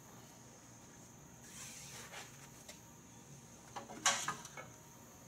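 Faint metallic clicks and rattles of tractor hydraulic quick couplers handled by hand as the pressure-gauge hose is uncoupled from the loader valve port and the line reconnected, with a short cluster of sharper clicks about four seconds in.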